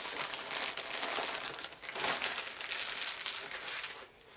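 Irregular crinkling and rustling of packaging being handled while a surprise egg and its plush toy are unwrapped.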